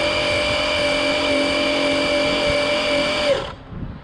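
Losi No Prep Drag Car's brushless electric motor and drivetrain whining at a steady high pitch at full speed on a drag pass, then cutting off suddenly about three seconds in as the throttle is let off.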